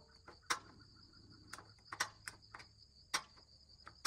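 About half a dozen sharp clicks at irregular intervals from a gas grill's igniter as the side burners are being lit, over a steady high chorus of insects.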